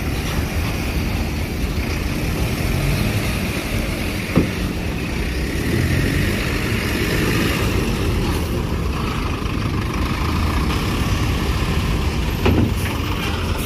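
Tour bus engine running with a steady low rumble as the bus moves onto the ferry, with a short sharp knock about four seconds in and another near the end.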